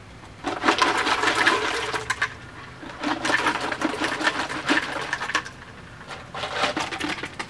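Ice cubes poured from a plastic cooler clattering into plastic buckets of water, a busy rattle that comes in three pours with short pauses between.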